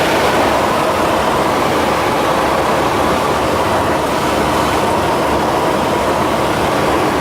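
Cessna 172's piston engine and propeller heard from inside the cabin in flight: a steady, loud drone with a constant tone that does not change in pitch.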